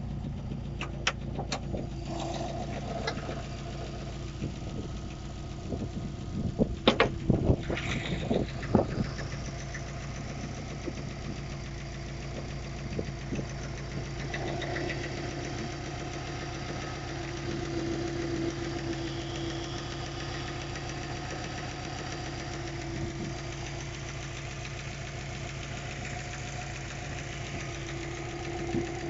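Subaru Forester's EJ205 flat-four idling warm, running rough with a knock from the pulley end that the owner suspects is the timing belt's hydraulic tensioner. A few sharp knocks and clatters come about seven seconds in.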